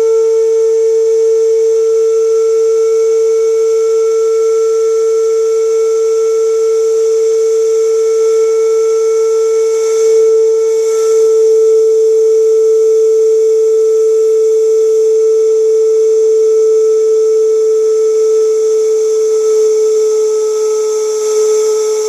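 Lunkenheimer steam whistle blowing one long, steady, clear note with faint overtones. The note sags slightly in pitch near the end as the supply pressure falls.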